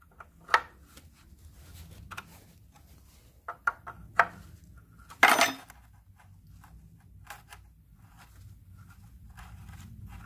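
Spanner working a tight, rusty nut on a steel car subframe: scattered metallic clicks and clinks, with the loudest clatter about five seconds in.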